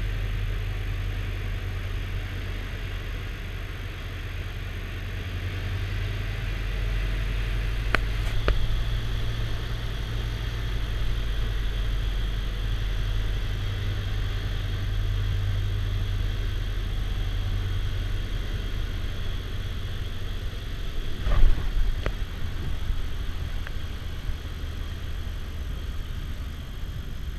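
Pratt & Whitney R-985 Wasp Junior radial engine of an MH-1521 Broussard, heard from inside the cabin, running steadily through the landing and rollout. Two sharp knocks come about eight seconds in, and a louder jolt comes about twenty-one seconds in.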